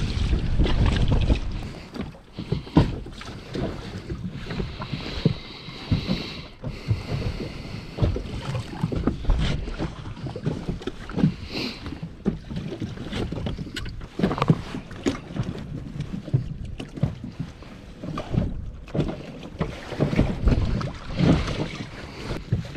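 Wind buffeting the microphone at first. Then scattered knocks and thumps from handling aboard an inflatable dinghy, as the mooring line is cast off and hands work around the outboard motor, which is not running.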